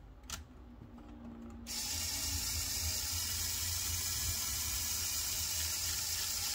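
Lego Power Functions medium motor driving the excavator's gears and linear actuator, a steady whirring hiss. It is stopped at first, with a click, and starts up again under two seconds in.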